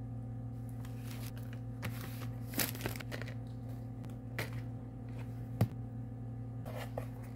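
Rustling and light plastic clicks from a fabric pencil pouch and clear plastic marker cases being handled, with a sharp knock about halfway through, over a steady low hum.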